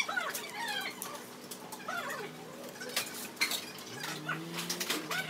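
Metal chopsticks clicking against a rice bowl a few times, with indistinct voices in the background.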